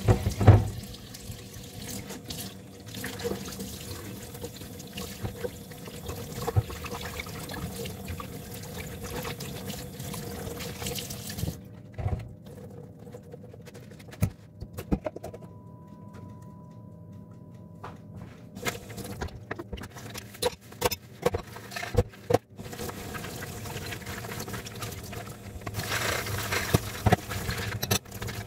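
Water running, with a thump right at the start, stopping about twelve seconds in. Scattered knocks and clicks follow, then a steady rush of noise near the end.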